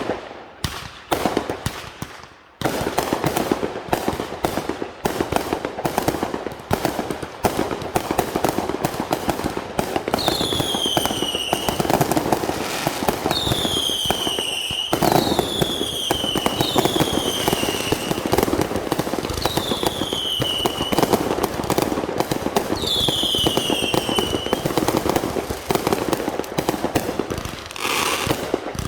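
Fireworks going off: a few separate bangs, then from about two and a half seconds in a dense, continuous crackle of rapid pops. About six short falling whistles sound over the crackle.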